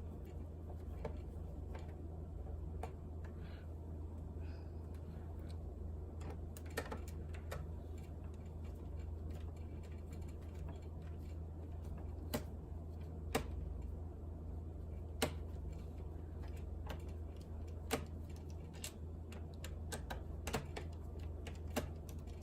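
Small irregular clicks and taps of a screwdriver and screws on a laptop's plastic bottom case as the case screws are taken out, a few sharper than the rest, over a steady low hum.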